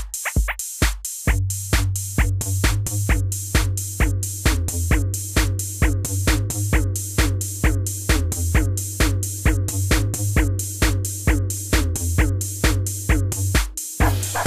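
Background electronic music with a steady, fast beat and a bass line; the bass drops out briefly about a second in.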